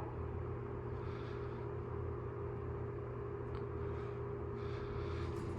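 Mitsubishi Accel AI elevator car travelling between floors: a steady low hum with a faint steady tone above it and a couple of soft hissing swells.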